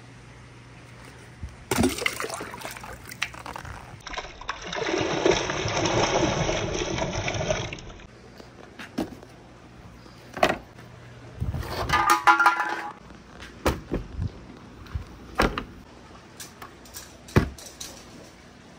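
Water rushing for about four seconds, then scattered knocks and clicks, with one short ringing clink.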